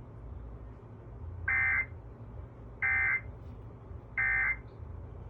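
EAS end-of-message data signal on NOAA Weather Radio: three short, identical bursts of high digital data tones a little over a second apart, over a steady low hum. It marks the end of the broadcast alert message.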